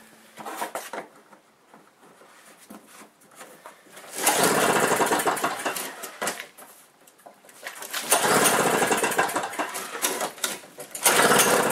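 Two-stroke engine of a single-stage snowblower being pull-started: three times it fires for about two seconds and then dies away, a hard cold start where the engine will not keep running.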